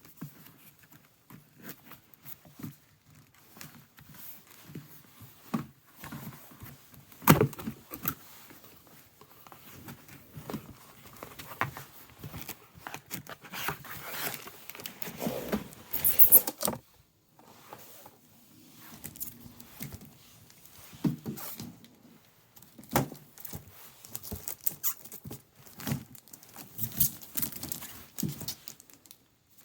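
Membership kit packaging handled by hand during unboxing: irregular knocks, clicks and rustles, the loudest knock about seven seconds in.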